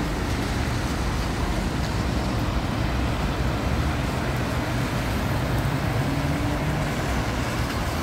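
Road traffic on a wet road: tyres hissing on the wet surface as a car passes, and the engine hum of a double-decker bus approaching and drawing up close.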